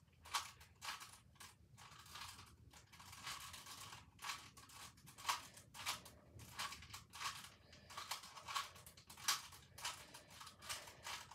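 Plastic layers of a 4x4 speed cube being turned by hand: quick, faint, irregular clicks and clacks, several a second, with short pauses between bursts of turns.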